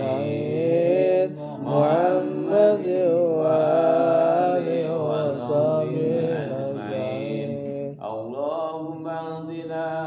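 A solo man's voice chanting sholawat, an Arabic devotional chant in praise of the Prophet, in long drawn-out wavering notes. A new phrase starts sharply about eight seconds in.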